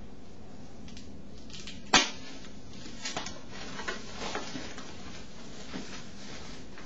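Plastic packaging bags crinkling and rustling as a boxed DJ deck is lifted out and unwrapped, with one sharp clack about two seconds in and a few lighter crackles after it.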